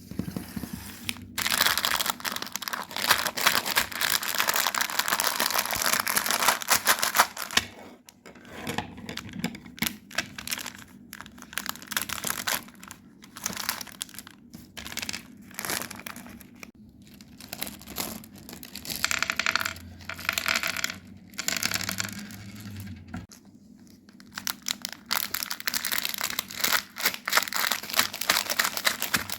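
Chocolate wrappers crinkling and tearing as they are opened. A long stretch of dense crackling comes first, then shorter bursts of rustling with pauses between.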